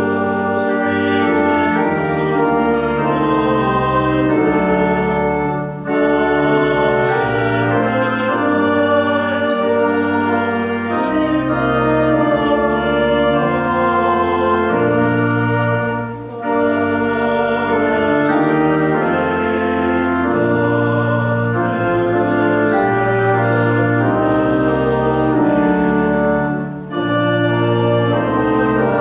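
Church organ playing a hymn stanza: full sustained chords over a low pedal bass, pausing briefly between phrases about six, sixteen and twenty-seven seconds in.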